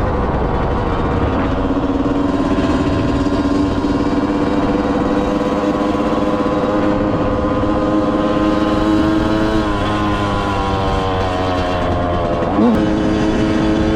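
Yamaha YZ125's single-cylinder two-stroke engine running at fairly steady revs over a low rumble, dropping briefly about ten seconds in and then picking back up, with a quick blip of revs near the end.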